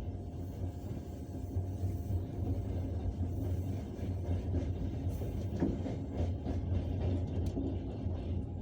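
Passenger train's wheels running over the rails, heard from inside the carriage: a steady low rumble, with several short knocks from the wheels in the second half.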